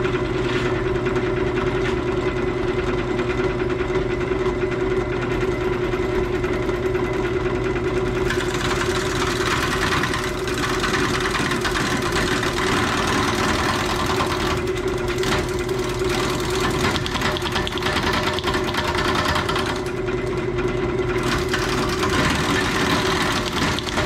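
Jet 1236 wood lathe running at low speed with a steady hum while a carbide square-tip tool cuts an out-of-round green Leyland cypress blank, the tool chattering as it meets the flat spots still on the blank. From about eight seconds in the cutting hiss grows louder, easing off briefly near the end.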